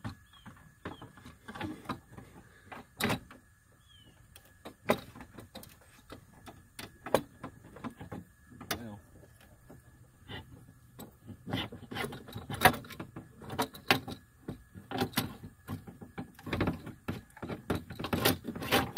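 Irregular clicks, knocks and rattles of a loose power-window regulator from a 2011 Buick Lucerne. The unplugged motor and its metal cable rail are being manoeuvred out through the inner door shell and knock against the door frame. The knocking gets busier and louder in the second half.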